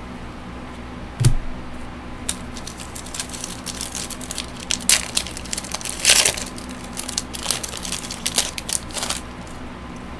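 Plastic card-pack wrapper crinkling and trading cards being shuffled and handled, a run of small crackles and clicks that is densest in the middle, with a soft knock on the desk about a second in.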